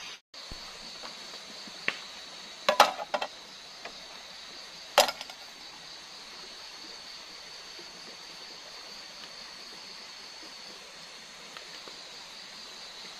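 Steady high chirring of night insects, such as crickets, with a faint rushing underneath. A few sharp knocks cut through it: one about two seconds in, a quick cluster just before three seconds, and a single louder knock at about five seconds.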